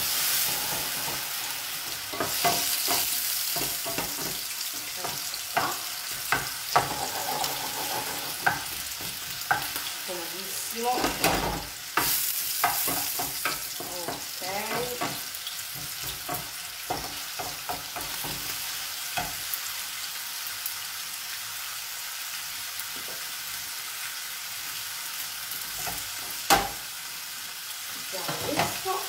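Diced guanciale sizzling and frying in pans, with a wooden spoon stirring it and knocking against the pans many times.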